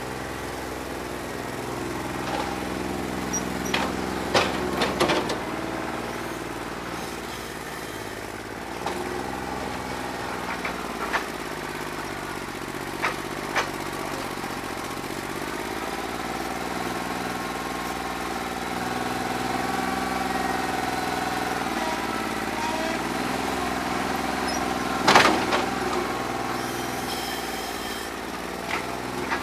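New Holland 1320 compact tractor's diesel engine running, its speed rising and falling, while it runs with a bad injector. Sharp knocks break in several times; the loudest comes near the end.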